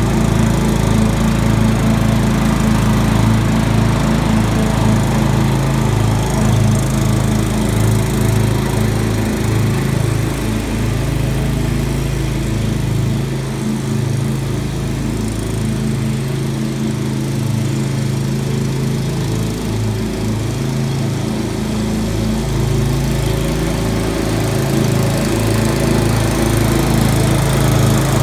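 Walk-behind lawn mower's small engine running steadily while cutting tall grass, with a pulsing low hum; it grows a little fainter in the middle and comes close again near the end.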